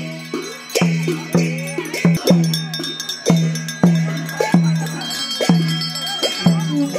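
Traditional procession music: a drum beaten in a steady rhythm of about two strokes a second, each stroke ringing on low, over a metallic ringing and crowd voices.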